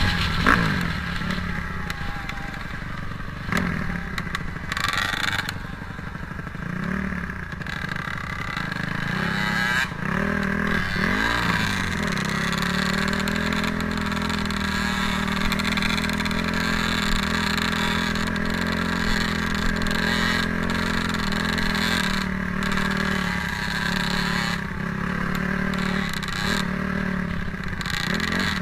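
Dirt bike engine running while riding, the revs rising and falling with the throttle during roughly the first twelve seconds, then holding fairly steady.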